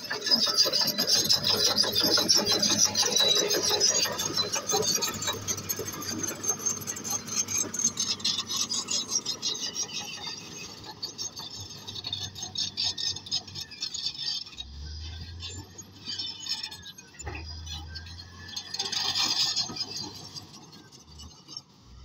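Komatsu D155A crawler bulldozer at work: steel tracks squealing and grinding over rock and soil, with the diesel engine running underneath. The grating is loudest in the first several seconds and eases off later.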